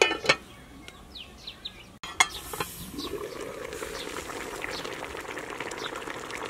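Aluminium pot lid clinking with a short metallic ring as it is handled, twice near the start and again about two seconds in. After that, the fish soup in the pot bubbles and hisses steadily, with small crackles from the wood fire underneath.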